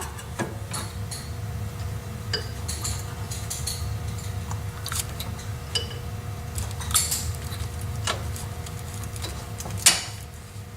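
Scattered light metallic clinks and taps as the rear brake caliper of a 2006 Infiniti G35 is fitted back over the new pads and its slide pins are put back in, over a steady low hum.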